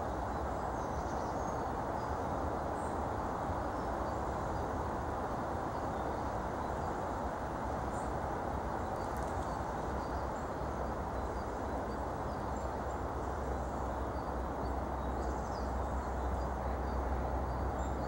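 Steady outdoor background noise with a low rumble, and faint, short, high chirps of small birds scattered through it.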